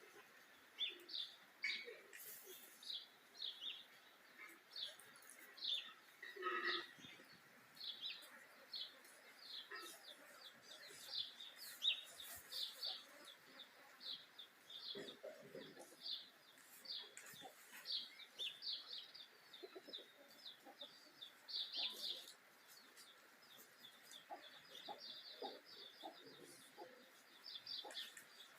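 Birds calling: a steady run of short, high chirps, a couple every second, with a few lower calls in the middle and near the end.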